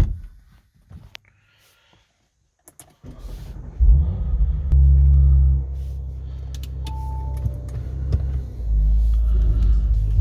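A single thump at the start, then near quiet; about three seconds in a car engine starts, runs louder for a couple of seconds as it flares up, then settles into a steady low idle.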